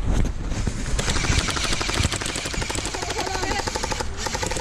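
Airsoft guns firing on full auto: a long rapid string of sharp clicking shots, many a second, starting about half a second in and stopping near the end.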